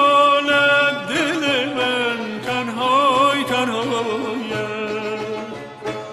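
Background music: a melody with wavering, ornamented pitch over a steady low drone.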